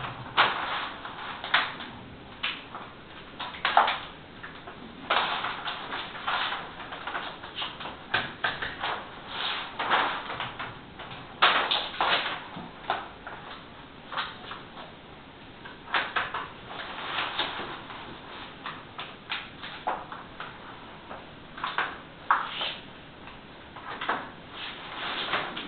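Irregular rustling and crackling of a large plastic whiteboard sheet being pressed and smoothed onto a wall by hand, its loose edge flexing. The crackles come in uneven bursts about every second.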